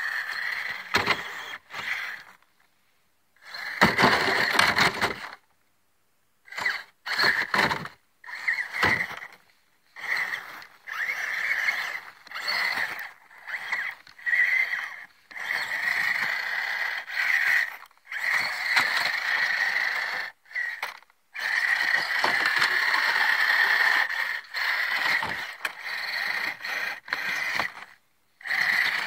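Redcat Barrage Gen2 RC crawler's electric motor and gears whining in short stop-start throttle bursts as it crawls over snow, with a longer unbroken run late on.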